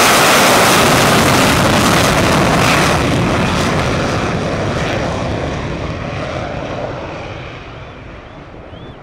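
English Electric Lightning's two Rolls-Royce Avon turbojets at full power with reheat lit, accelerating on a high-speed runway run. The jet noise is very loud at first, then fades steadily from about three seconds in as the aircraft races away.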